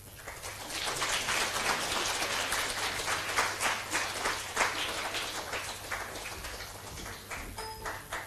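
Audience applauding, building up about a second in and tapering off toward the end.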